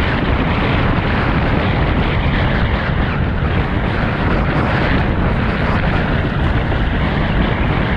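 Heavy wind buffeting the head-mounted camera microphone while windsurfing in strong wind: a loud, steady rumbling roar of wind noise.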